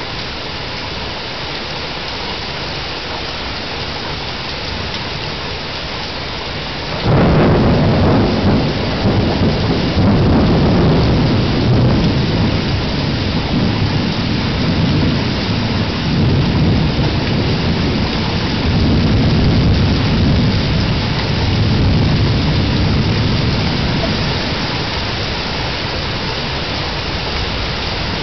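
Steady rain hissing, then about seven seconds in a sudden thunderclap breaks into a long, low rolling rumble that swells and ebbs several times and slowly dies away, heard through a security camera's microphone.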